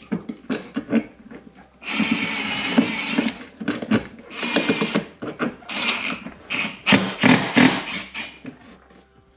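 Cordless drill driving screws into a mounting bracket: one run of about a second and a half, then two shorter runs. Sharp clicks and knocks come between the runs.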